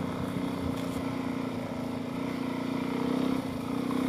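Suzuki DRZ400S single-cylinder four-stroke engine running steadily under light throttle while being ridden, freshly rejetted with an aftermarket exhaust. Near the end it dips briefly, then picks up again a little louder.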